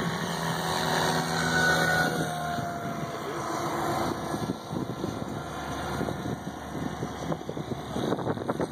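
SAB Goblin 700 electric RC helicopter in flight: a whine from the motor and drivetrain that shifts in pitch, over the rush of the rotor blades, swelling and fading as the helicopter moves.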